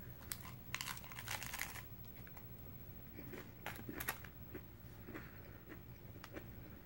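Biting into a crisp spicy tortilla taco shell: a run of crackling crunches through the first couple of seconds, then two sharper crunches about four seconds in as the chewing goes on.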